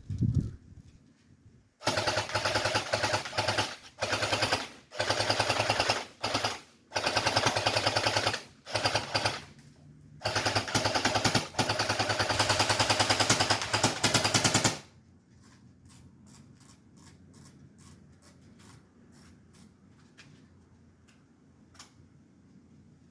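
StG 44 electric airsoft gun firing on full auto: a string of bursts over about thirteen seconds, the gearbox cycling rapidly with short pauses between trigger pulls. After that come only faint, scattered clicks.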